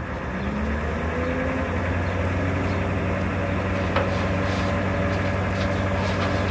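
Engine running the crane's hoist. It speeds up during the first second or so and then holds a steady pitch as the load is lifted, with a single metallic click about four seconds in.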